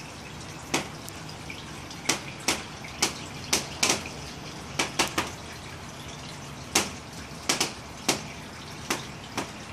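Water dripping: irregular single drops, about two a second, over a steady faint background.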